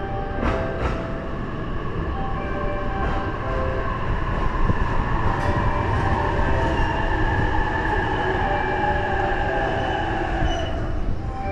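Utsunomiya Line electric commuter train pulling into the platform: a steady rumble of wheels on rail, with the motors' whine slowly falling in pitch as it brakes to a stop. The chime notes of the station's approach melody sound faintly over it in the first few seconds.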